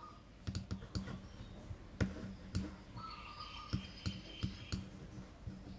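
Computer mouse clicking: about ten sharp, irregular clicks while nodes are picked from a menu and connected, over a faint steady hum.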